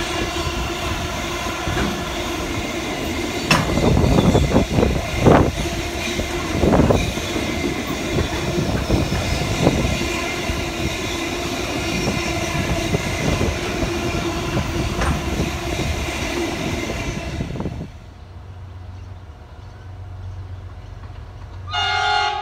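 A train running by, a steady rumble and hum with irregular clacks of wheels over the rail joints. It cuts off abruptly about three-quarters of the way through, leaving a quieter low hum, and a train horn starts sounding just before the end.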